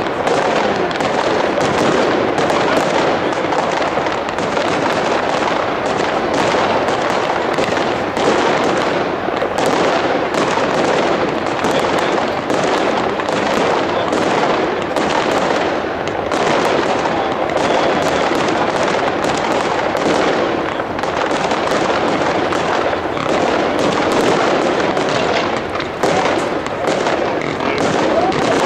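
Aerial fireworks display: a dense, unbroken barrage of overlapping bangs and crackling as shells burst and comets rise.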